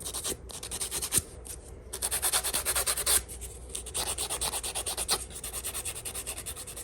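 Fingernails being filed with quick back-and-forth scraping strokes, in spells with short pauses, roughening the smooth nail surface so press-on nail glue will grip.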